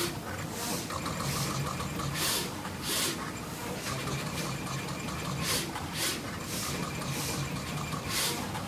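Mycronic MY200LX pick-and-place machine running its automated burn-in test, its placement axes cycling. A steady motor hum is broken by short hissing whooshes that come in clusters, a few within a couple of seconds, then a pause.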